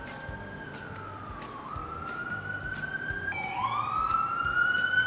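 Emergency vehicle siren wailing, its pitch sliding slowly down and then back up. About three seconds in, a second siren tone starts lower and climbs alongside the first.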